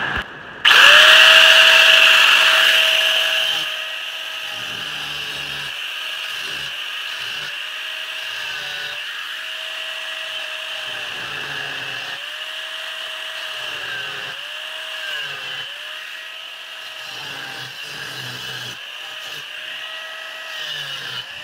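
Angle grinder with a small cut-off disc starting up about half a second in and cutting a square steel tube. It is loudest for the first few seconds, and the motor's pitch keeps dipping as the disc bites into the metal.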